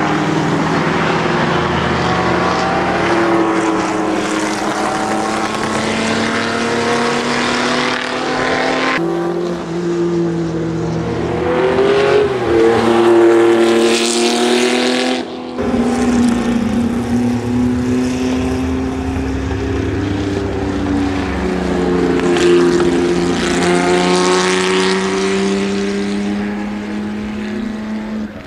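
Porsche Carrera 6 (906) racing car's two-litre SOHC flat-six running hard on track, its note climbing with the revs and dropping as it lifts off. The sound changes abruptly about 9 and 15 seconds in, where separate shots are joined.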